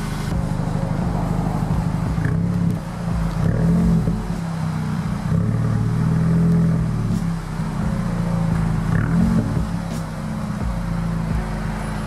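Volkswagen Mk6 Golf GTI's turbocharged four-cylinder engine running, its revs rising and falling several times.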